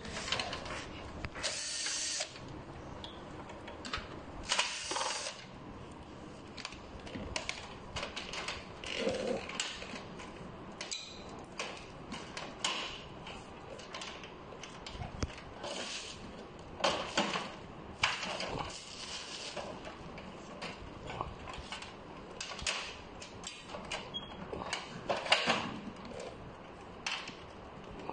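A cordless screwdriver running in a few short bursts while a photocopier's side cover is unscrewed, with scattered clicks and knocks of the plastic cover panels being handled.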